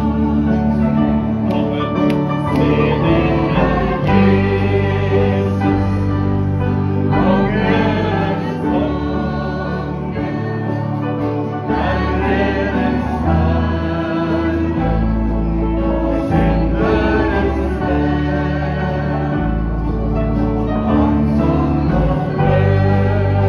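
Live Norwegian gospel song: a woman singing lead with harmony voices, over acoustic guitar, electric guitar and accordion.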